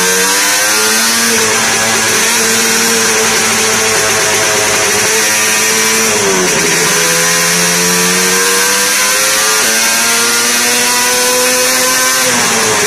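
Yamaha RD250 two-stroke twin with homebrew expansion-chamber exhausts, run under load on a roller dyno. The engine note climbs steadily for about six seconds, drops sharply, then climbs again for about five seconds before falling near the end.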